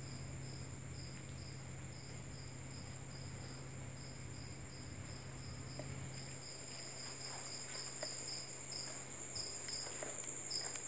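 Crickets chirping: one steady high trill and another pulsing chirp about three times a second, over a faint low steady hum.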